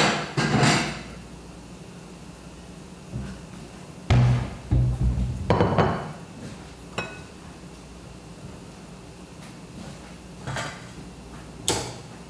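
Kitchen clatter: a handful of separate knocks and clunks of cookware and utensils over a steady low hiss. The loudest are a cluster about four to six seconds in, with sharper single knocks later.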